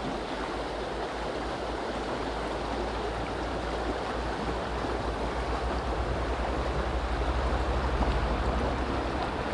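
Steady rush of a small river's flowing water, with a low rumble underneath that swells through the middle.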